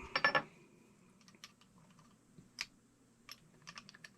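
Small metal parts of a Coleman 220F lantern clinking and clicking as they are handled: a quick rattle of clinks with a brief ring at the start, then scattered single light clicks.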